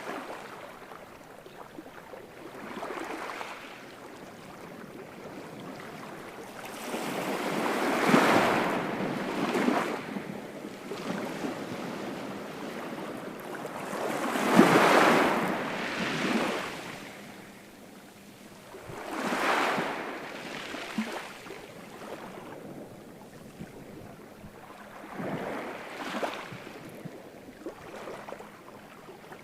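Ocean waves breaking and washing ashore: about five slow surges of surf rise and fade over a quieter steady wash, the loudest near the middle.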